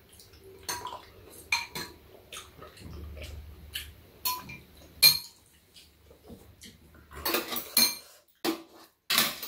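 Metal spoons and chopsticks clinking and scraping against ceramic bowls while two people eat soup: scattered light clinks, coming thicker about three quarters of the way in and again at the very end.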